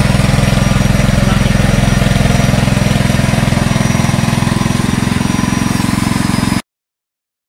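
Small petrol engine running steadily, driving a floating fish-feed pellet extruder as it turns out pellets. The sound cuts off suddenly about six and a half seconds in.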